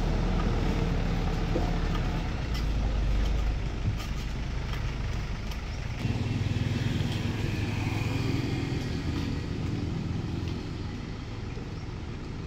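A motor running steadily with a low hum. The hum shifts about six seconds in and eases off near the end.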